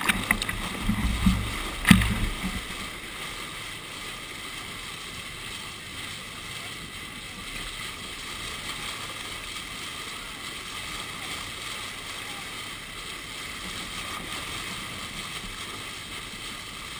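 A boat's bow wave splashing, with spray striking the camera in thumps and cracks over the first two seconds or so, then a steady rush of water and wind going past.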